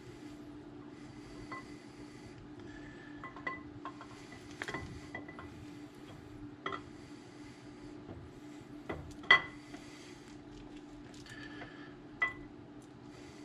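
Camshaft of a 6.4L Hemi being worked by hand into the engine block, giving a scattering of light metallic clinks as its lobes knock against the cam bearings. The loudest clink comes about nine seconds in and another near the end, over a steady low hum.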